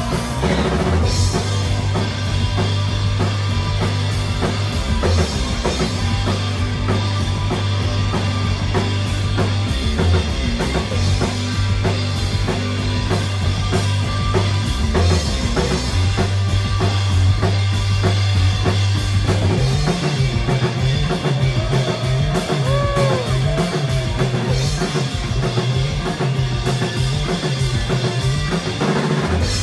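A live rock band playing an instrumental passage with no vocals: electric guitars over a drum kit played hard. About two thirds of the way through, the low notes change from long held notes to a choppy pulsing line, and a few bent guitar notes slide up and down.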